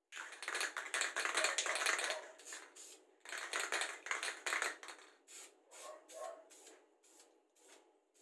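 Aerosol can of red wrinkle-finish spray paint being shaken, its mixing ball rattling, and sprayed in hissing bursts, with a long burst in the first two seconds.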